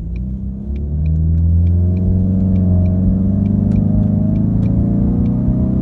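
The 2019 Mustang EcoBoost's turbocharged 2.3-litre four-cylinder pulling under acceleration through its active exhaust, heard from inside the cabin. The engine drone swells about a second in, climbs in pitch for a couple of seconds, then holds steady, with a light ticking over it.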